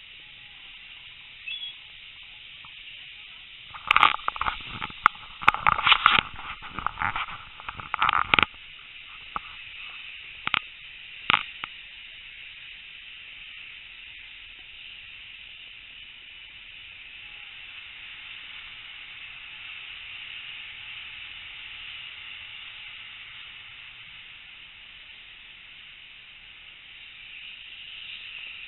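Steam-hauled passenger train in motion, heard from an open carriage window: a steady rushing hiss of wind and running noise. About four seconds in comes a burst of loud sharp cracks and clatters lasting several seconds, then two more single cracks a few seconds later.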